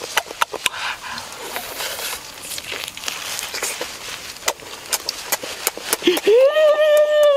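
Close-up wet chewing and lip-smacking on roasted chicken, with many short crunchy clicks as meat is bitten and torn from the bone. About six seconds in, a long high-pitched voiced sound rises, holds and then falls away, louder than the chewing.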